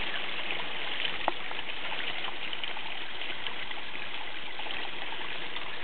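Steady trickle and splash of running water in a koi pond, with a single faint tick about a second in.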